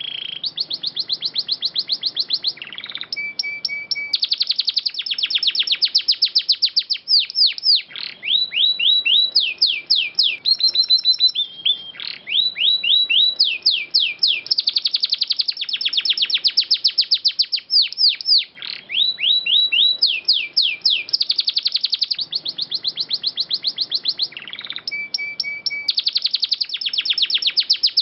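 Domestic canary singing a long, loud song of rapid trills and quick downward-sweeping notes, starting abruptly after silence. The uploader bills the song as taking in phrases of white-rumped shama, greater green leafbird and oriental magpie-robin.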